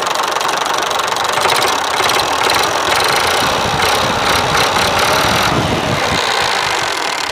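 Massey Ferguson 350 tractor's three-cylinder diesel engine running steadily, picked up close to the cylinder block so that the cylinders' own sound comes through.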